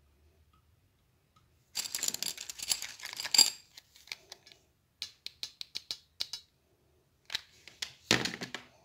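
Hard crafting items handled on a glass table: crystal beads clinking in a glass bowl and a hot glue gun being picked up and set down. Two short bursts of clinking and rattling, the first about two seconds in and the loudest near its end, the second near the end, with a run of about eight sharp clicks in between.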